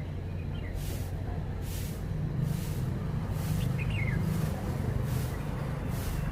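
A steady low mechanical rumble, swelling slightly in the middle, with two faint short chirps from a red-whiskered bulbul, one near the start and one a little past halfway.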